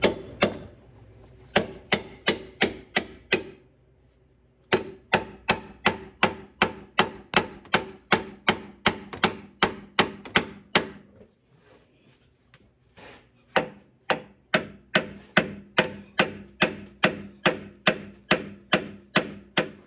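Sledgehammer striking a pickle fork wedged into a front suspension ball joint to split its tapered stud from the knuckle: repeated sharp metal-on-metal blows, about two a second, in three runs with short pauses between them.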